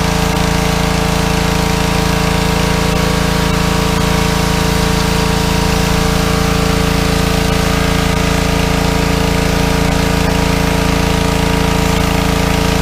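Petrol pressure washer's small engine running steadily under load with an even hiss of water spray; it is running smoothly now that its clogged carburettor has been cleaned.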